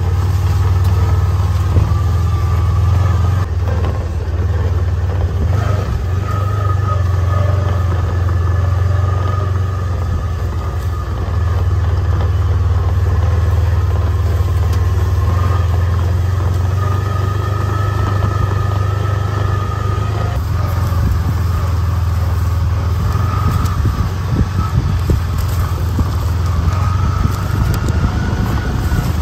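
Kubota Sidekick utility vehicle's engine running steadily while driving across a field, a constant low drone.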